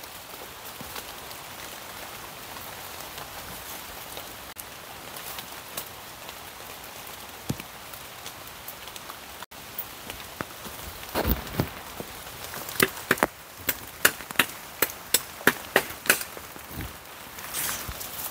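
Rain falling steadily in a steady hiss. A little past the middle comes a run of about ten sharp knocks or cracks, roughly two a second, louder than the rain.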